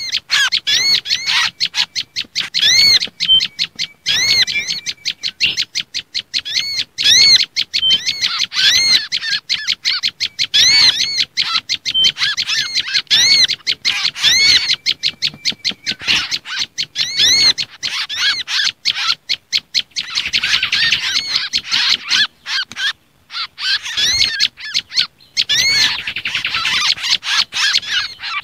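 Bird-lure recording of small songbirds calling: agitated prenjak lumut (tailorbird) chatter mixed with kancilan bakau (mangrove whistler) and sogok ontong calls. Fast, continuous high chirping with repeated arching notes about twice a second.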